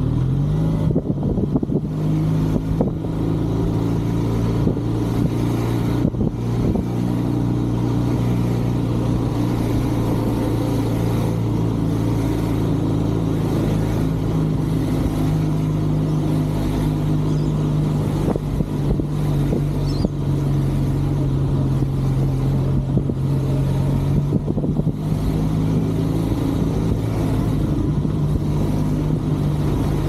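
Benelli 502C motorcycle's 500 cc parallel-twin engine running at a steady cruise. Its note rises briefly in the first second, then holds nearly constant.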